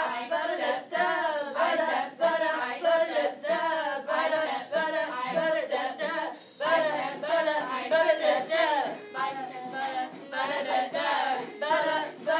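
A group of teenage girls rapping and singing together in unison, unaccompanied, over a steady rhythmic beat, with a brief break about halfway through.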